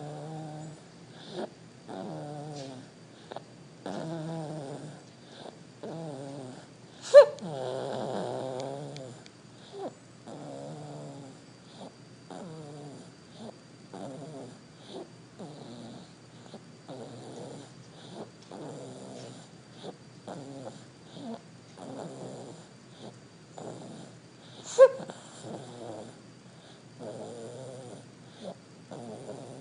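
Snoring in a quick, regular rhythm of about one breath a second. Two sudden sharp sounds, much louder than the snoring, come about seven seconds in and near the end.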